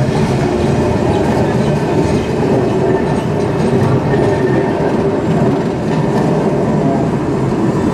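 Articulated city tram passing close by on street rails, a steady rolling rumble of its wheels on the track.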